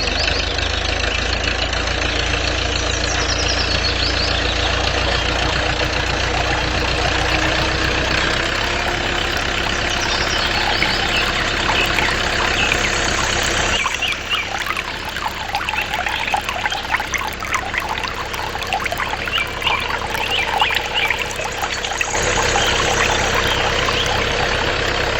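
A small motor running steadily, its sound changing abruptly a few times.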